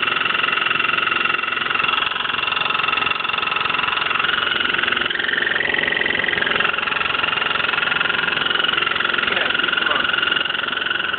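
Hotpoint washing machine running with a steady high-pitched whine over a mechanical hum, the tone shifting briefly about halfway through; this is the unexplained noise the owner is asking about.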